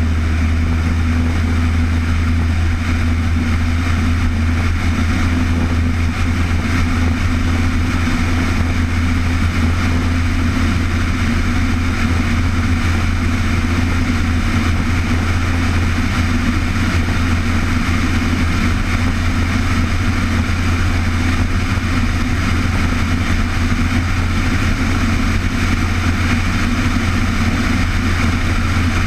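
A steady engine drone with a strong low hum, unchanging in pitch and level throughout.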